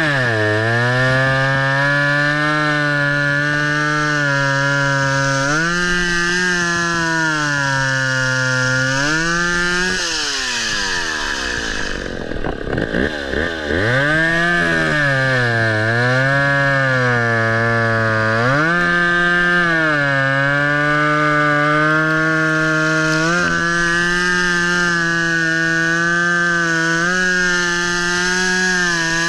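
Chainsaw engine running at high revs while cutting, its pitch sagging as the chain bites into the wood and rising again as it frees. About twelve seconds in it drops to a low rumble, then revs back up and carries on cutting.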